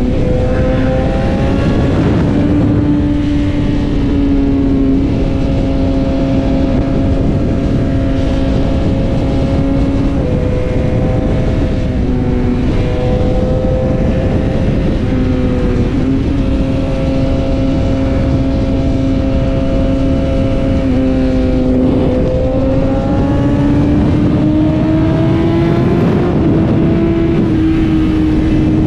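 BMW S1000RR inline-four engine running at a steady high-rpm note at highway speed, over heavy wind rush. The note dips briefly twice around the middle, then climbs in pitch near the end as the bike speeds up.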